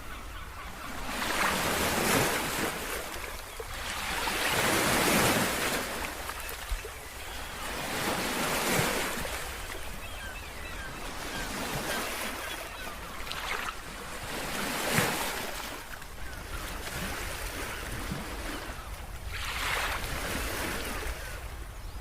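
Sea waves surging and washing ashore, one swell every few seconds, over a steady low rumble of wind.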